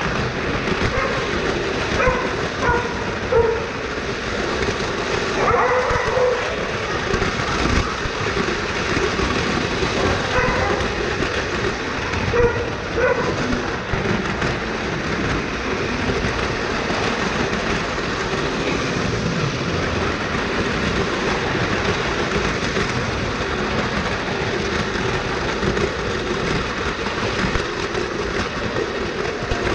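Lionel Standard Gauge tinplate model train running along its track, heard from a camera riding in one of its cars: a steady rattle of wheels on the rails, with a few short squeaks in the first half.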